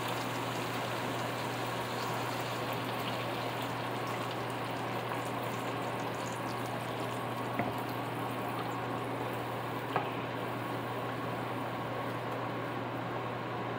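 Chicken legs, potatoes and carrots simmering in seasoned broth in a frying pan: a steady bubbling hiss over a low steady hum, with two light knocks midway.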